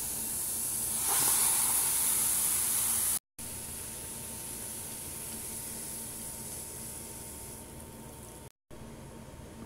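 Mountain Dew poured from its bottle into a pot over a raw octopus: a steady fizzing, splashing hiss, loudest about a second in, cut off briefly twice.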